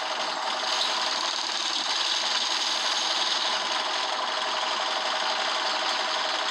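Optare Solo bus engine running, heard from inside the bus, with a steady fast mechanical clatter: the noisy engine fault.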